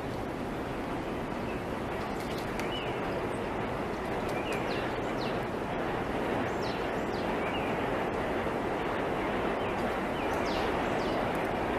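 Steady rushing water in a sea otter pool, with scattered short, high, falling chirps and a few faint clicks.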